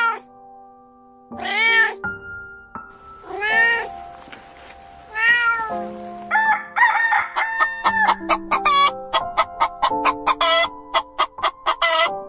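A cat meowing four times, each meow rising and falling in pitch, over soft background music. From about halfway in, a rooster and chickens call in many quick, closely repeated notes.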